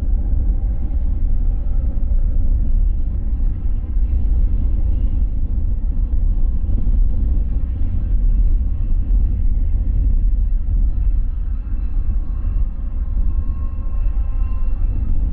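LORAM rail grinder train working along the mainline: a loud, steady low rumble.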